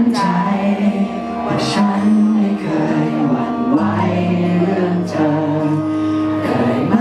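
Male vocalist singing live into a handheld microphone over instrumental backing music, holding long notes that step up and down in a slow melody.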